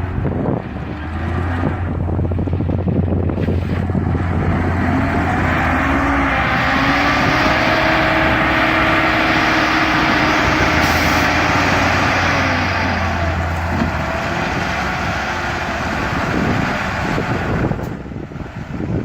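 Heavy diesel engine of an earthmoving machine working under load: a steady low rumble, rising in pitch and loudness from about six seconds in, holding, then easing off again well before the end.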